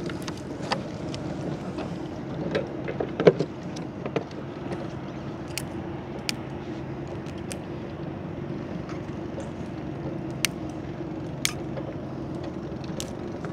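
Small boat engine running steadily, with scattered sharp clicks and knocks, the loudest about three seconds in.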